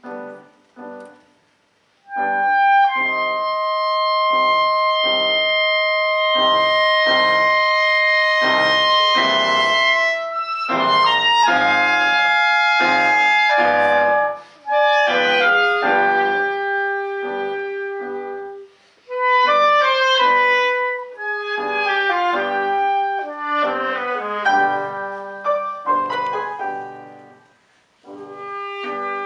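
Two clarinets and piano playing a klezmer-style chamber piece. Both clarinets hold long notes in harmony over short repeated piano chords, then move into quicker phrases, with brief breaks between sections.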